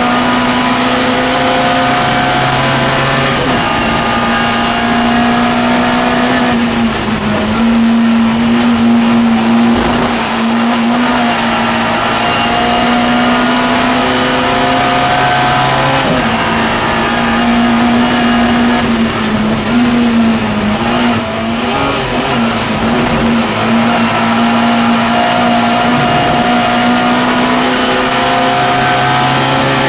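Mini Miglia race car's tuned A-series engine running hard at high revs, heard from inside the cockpit, its note dipping briefly several times before picking up again, over wind and road noise.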